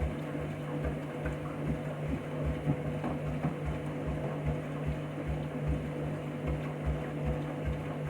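Washing machine on its rinse cycle: a steady motor hum with regular low thuds a few times a second as the drum tumbles the wet laundry.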